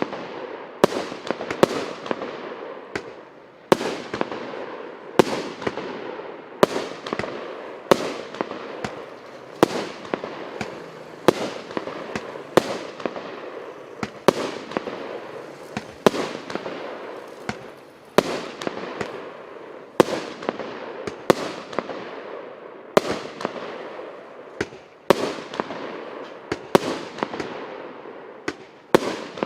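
A 99-shot, 1.25-inch Russian Fireworks 'Папа может' cake firing in sequence: a sharp bang about every one and a half seconds as each shell bursts, with dense crackling and hiss between the shots.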